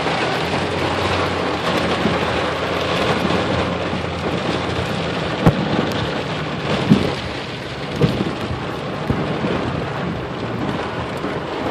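Heavy rain pelting a vehicle's roof and windshield, heard from inside the cabin as a steady hiss, with a few sharp knocks near the middle.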